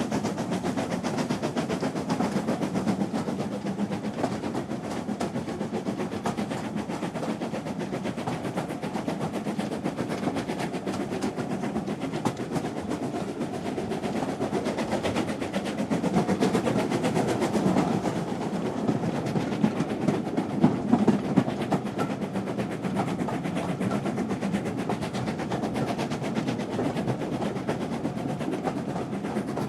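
Train running at a steady speed: a continuous rumble with a rapid clatter of wheels on the rails, swelling a little louder around the middle.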